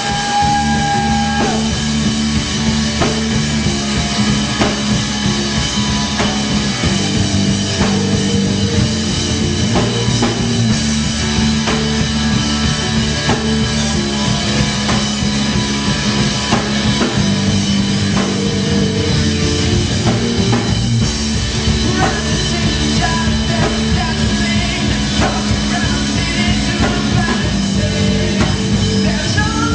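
Live rock band playing: electric guitar, bass guitar, drums and keyboard, with a man singing into the microphone.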